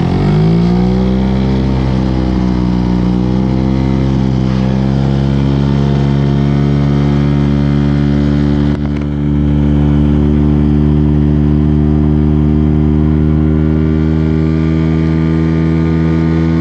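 Small boat outboard motor rising in pitch as it speeds up, then running at a steady, even pitch. It dips briefly about nine seconds in and carries on.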